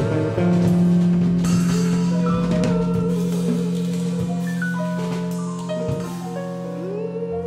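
Instrumental jazz band music: a drum kit plays under a long held low note, while higher notes step up and down in a melody above it.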